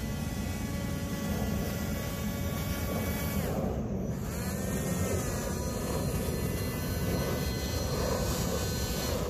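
Electric motor and caged air propeller of an RC rescue airboat whining steadily under power. The pitch falls sharply about three and a half seconds in as the throttle is eased off, then rises again a second later and holds.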